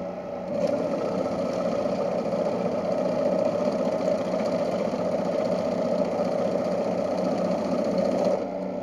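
Ribao BCS-150 banknote counting machine running steadily. It comes up softly, runs louder and evenly for about eight seconds, and drops back to a softer hum near the end.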